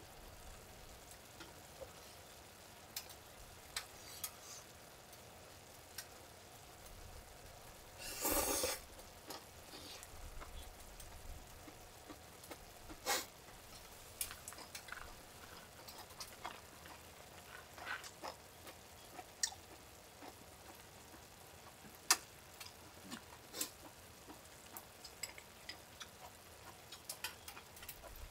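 Wood fire crackling, with irregular sharp pops over a low steady background and a brief louder burst of noise about eight seconds in.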